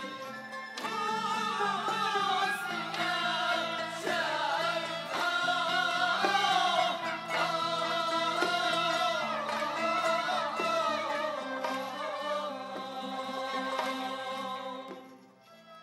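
Male voices singing an Uzbek maqom melody in unison, as a choir, over a traditional instrumental ensemble. The singing ends shortly before the close, with a brief drop in level before the instruments carry on.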